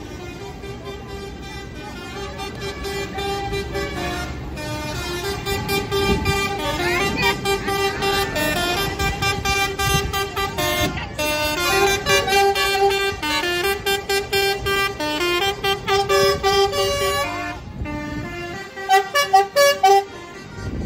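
A tune played loudly from a passing vehicle in a slow convoy of tractors and a lorry, over their engines. A few loud horn blasts come close together near the end.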